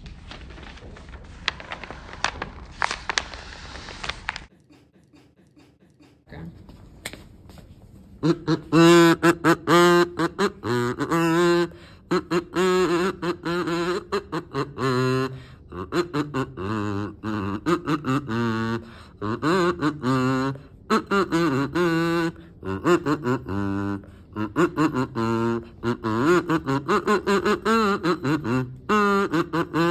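Metal kazoo played as a tune, a string of buzzy hummed notes stepping up and down. It starts about eight seconds in, after a few seconds of hiss.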